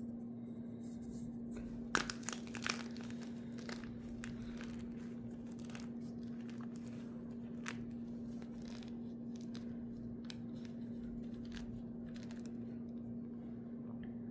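Gym chalk crumbling and crunching as it is crushed, in crisp crackles that are densest and loudest about two seconds in, then thinning to scattered crackles. A steady low hum sits underneath.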